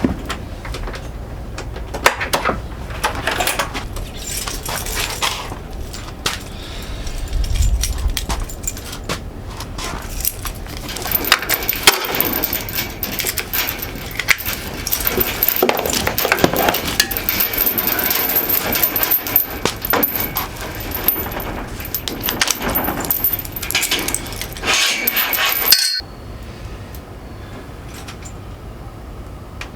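Irregular clinking, knocking and scraping of hand tools and metal parts, as in motorcycle tyre work, stopping suddenly about 26 seconds in and leaving a quieter steady background.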